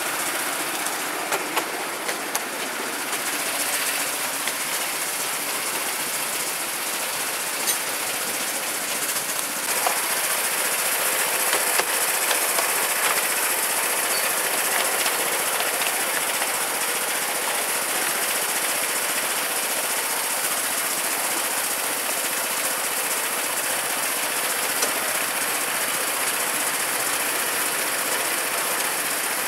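Miniature railway train on the move, heard from a coach behind its small steam-outline locomotive: a steady small-engine note with wheels rolling on the rails and occasional clicks. It gets a little louder about ten seconds in.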